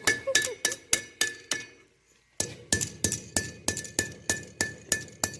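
Hand hammer striking hot steel on an anvil in a steady rhythm of about three to four blows a second, each blow ringing; the hammering breaks off briefly about two seconds in, then resumes.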